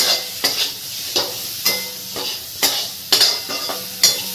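Metal spatula scraping and knocking against a metal kadhai as sliced onions and chillies are stirred, with oil sizzling steadily underneath. The spatula strokes come irregularly, about every half second.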